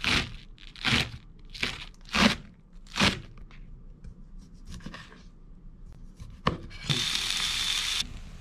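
Kitchen knife slicing through a bunch of green onions on a wooden cutting board: five crisp cuts in the first three seconds. Softer cutting clicks follow, then about a second of hiss near the end.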